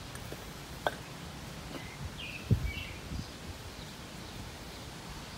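Metal parts of a scroll AC compressor being handled during teardown: a light click about a second in and a dull knock around halfway, over a steady outdoor background with a few faint bird chirps.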